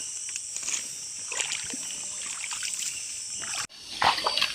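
Steady high-pitched chorus of night insects, with small water splashes and light knocks. The sound drops out briefly near the end and returns with louder splashing.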